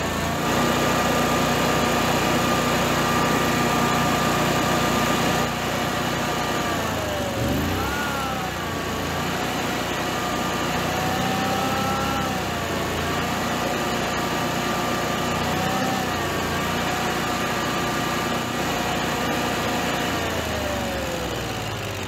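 A Generac-built standby generator's twin-cylinder engine running steadily, its speed dipping and recovering a few times as the governor servo linkage is adjusted by hand, then dropping gradually near the end. The governor is being reset because the servo had no room left to move, which had let the engine overspeed.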